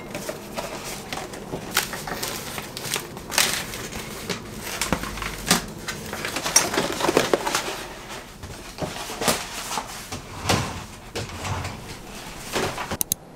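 Self-adhesive vinyl kitchen sheet being unrolled and handled: irregular crackling rustles and sharp clicks of the stiff plastic, which stop just before the end.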